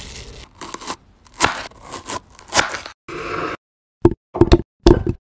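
A metal spoon scraping and crunching the seeds and pith out of a halved bitter melon, then several short knocks as chunks of melon drop into a clear plastic food-chopper bowl.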